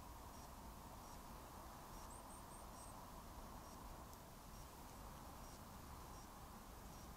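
Near silence: the steady hiss of a trail camera's microphone, with a quick run of four faint, very high chirps about two seconds in.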